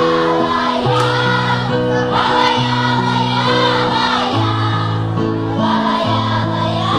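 A choir singing with instrumental accompaniment that holds sustained chords, changing every second or so.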